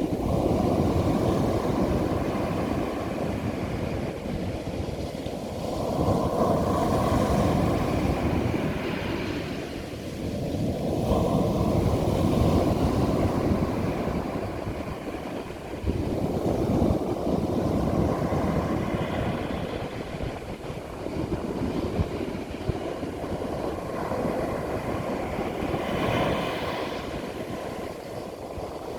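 Ocean waves breaking and washing up a beach, the surf swelling and easing every few seconds.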